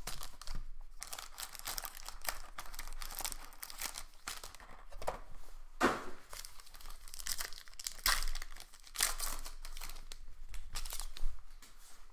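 Trading card box and shiny foil-wrapped card packs being pulled out, handled and torn open: irregular crinkling and ripping, with a few louder tears.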